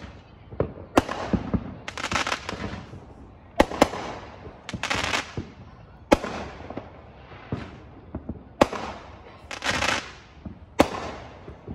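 Aerial fireworks launching and bursting: about half a dozen sharp bangs at irregular intervals of one to three seconds, each followed by crackling and fizzing.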